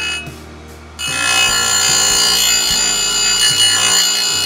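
Electric chainsaw chain grinder running, its grinding wheel spinning with a high, steady whine. It starts about a second in and runs to near the end.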